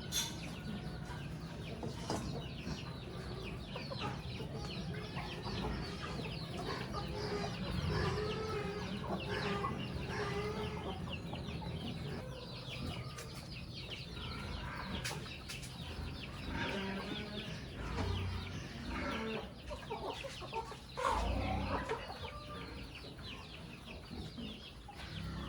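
A flock of chickens clucking continuously, many short overlapping calls.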